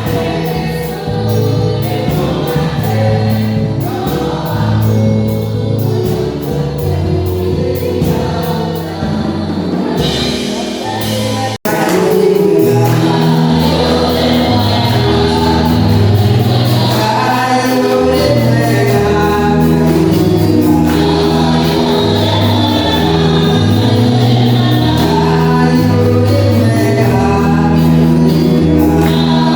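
Gospel choir singing with instrumental backing. The music cuts out briefly about a third of the way in, then carries on slightly louder with held notes.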